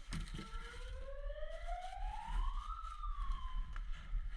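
A single whistle- or siren-like tone with overtones that climbs steadily in pitch for about two and a half seconds, dips a little and stops short: an edited-in comic sound effect.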